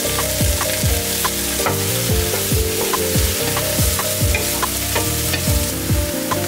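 Sliced leeks sizzling as they fry in hot olive oil with onions and garlic, stirred in the pan. Background music with a steady beat plays over it.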